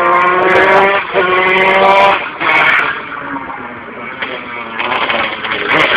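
125 cc two-stroke kart engine, a tuned Zanella 125, revving up hard twice in quick succession with a rising pitch, then dropping quieter and lower for a couple of seconds before climbing again near the end.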